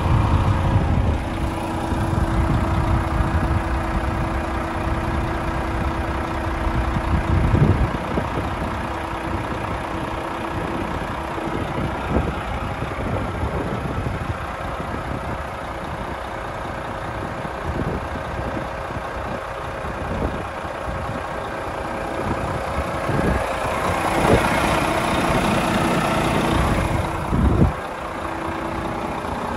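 A Renault T460 tractor unit's 460 hp Euro 6 diesel engine idling steadily, with a few knocks and a stretch of hiss about 24 seconds in.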